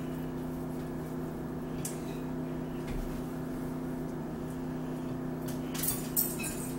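Steady low hum of several even tones, with a few light clicks of forks on plates, sharpest about six seconds in.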